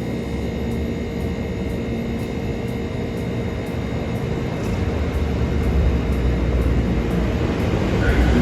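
A steady low rumble that grows louder from about five seconds in.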